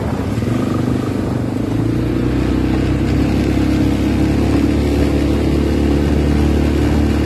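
Motorbike engine running under way, rising in pitch over the first couple of seconds as it speeds up, then holding steady.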